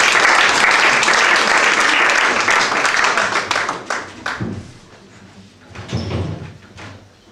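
Audience applauding, fading out after about three and a half seconds, followed by a few low knocks as a metal-legged table is set down on the wooden stage.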